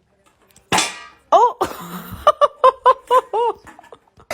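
High-pitched laughter in a quick run of short rising-and-falling "ha" syllables, after a brief sharp burst of noise about a second in.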